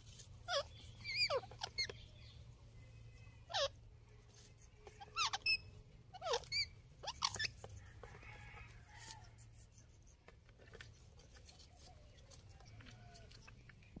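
Indian ringneck parakeets giving short squeaky calls, each sliding sharply down in pitch, about ten of them in the first seven or eight seconds, then only faint sounds.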